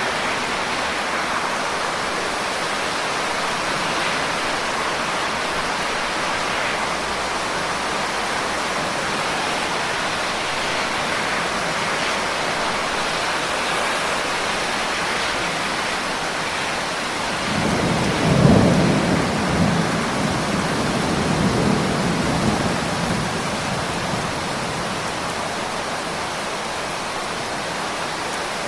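Steady rain falling, with a roll of thunder rumbling in about two-thirds of the way through, loudest at its start and dying away over about six seconds.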